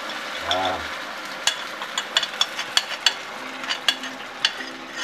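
Teriyaki sauce and garlic sizzling in a hot stone-coated wok while a wooden spatula stirs, clicking and knocking against the pan several times a second from about a second and a half in.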